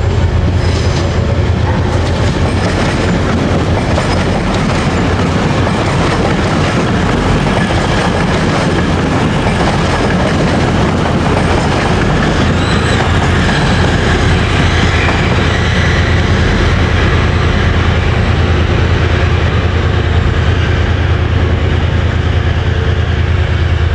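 Passenger train running through the station, a steady loud low hum with rail and wheel noise over it.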